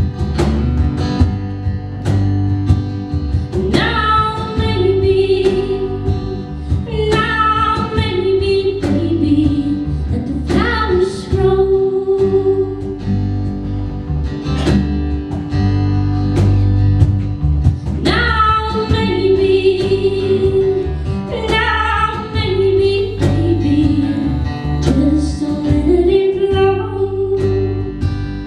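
A woman singing in phrases of a few seconds, backed by a small acoustic band: guitar, bass, piano and cajon keeping a steady beat.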